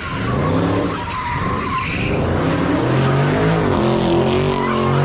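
A car doing donuts: its engine revs up and down while the spinning rear tyres screech and skid on the asphalt.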